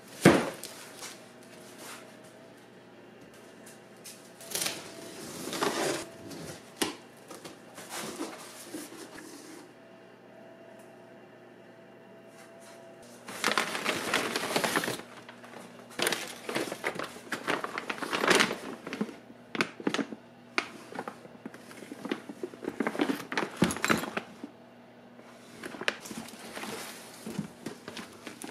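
Cardboard box set down with a knock, then handled and opened: packing paper rustled and pulled aside, and the plastic wrap around the skid plate inside crinkling, in irregular bursts of rustling.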